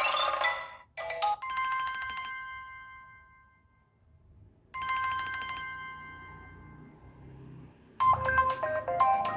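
Samsung Galaxy Young S6310 ringtones. A tune cuts off just before a second in, then two long bell-like chimes sound one after the other, each fading away over about three seconds. About eight seconds in, a new ringtone starts with a quick run of notes.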